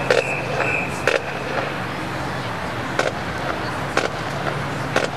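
Murmur of a stadium crowd, with sharp clicks about once a second.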